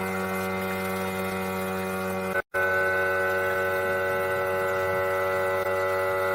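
A steady hum made of several held tones at once, dropping out abruptly for a moment about two and a half seconds in, then resuming unchanged.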